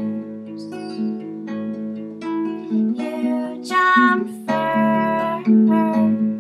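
Acoustic guitar with a capo played in a slow folk accompaniment, notes ringing on into each other, with a woman's singing voice in places.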